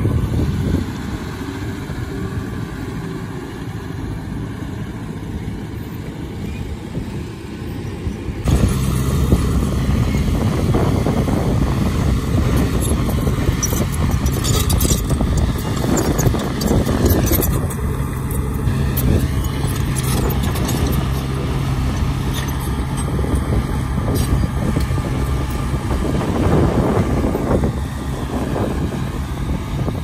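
Diesel engines of a dump truck and a crawler bulldozer running. The sound jumps abruptly to a louder, steady low hum about eight seconds in, with occasional rattles over it.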